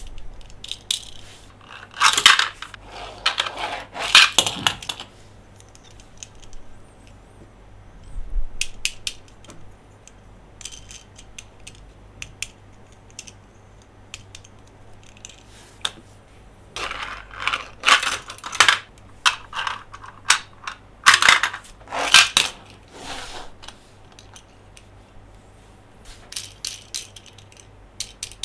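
Hard plastic toy trucks and playset pieces handled close up: clusters of clicks, taps and rattling scrapes. They come loudest about two seconds in and again from about seventeen to twenty-three seconds, with scattered lighter clicks between.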